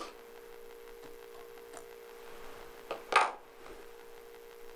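Quiet room tone with a steady faint hum, broken once about three seconds in by a brief sharp rustle.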